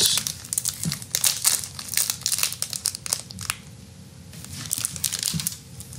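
Plastic food packaging being handled, crinkling and crackling with a short pause about three and a half seconds in.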